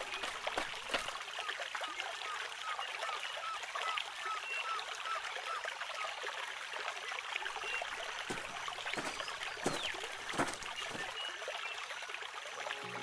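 Trickling, flowing water of a stream, a steady hiss. A run of small repeated chirps sounds over the first few seconds, and a few short splashes come about two-thirds of the way through.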